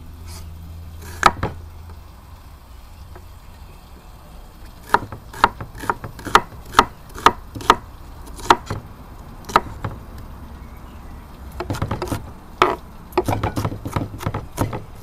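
Kitchen knife chopping an onion: single strokes about twice a second, then quicker, denser chopping near the end.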